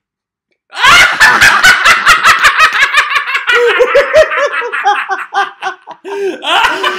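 Two men bursting into hearty laughter at a joke's punchline, starting about a second in after a brief silence and going on in quick, loud ha-ha pulses that ease off and drop in pitch toward the end.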